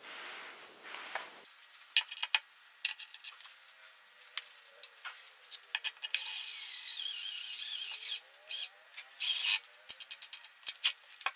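Cordless drill driving an assembly screw into a particleboard shelf panel. The drill runs steadily for about two seconds in the middle and again briefly a little later, with scattered clicks of handling before it and a fast run of clicks near the end.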